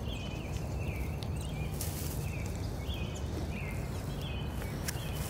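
Outdoor roadside ambience: a steady low rumble of road traffic, with a short high chirp repeating about twice a second.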